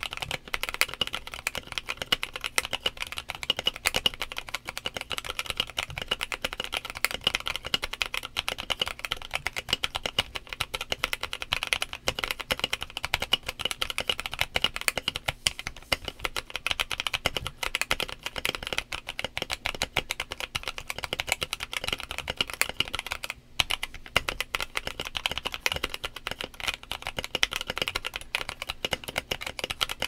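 Steady rapid typing on a Sikakeyb SK1 mechanical keyboard with an FR4 plate, Kailh Box Cream linear switches and NK Sand keycaps: a dense stream of keystroke clacks. There is a brief pause about two-thirds of the way through.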